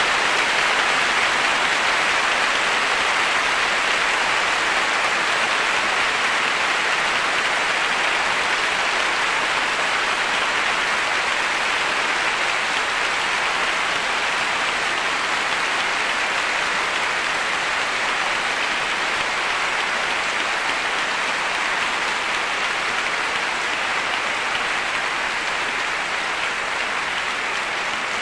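A large audience applauding: dense, steady clapping that eases off slightly toward the end.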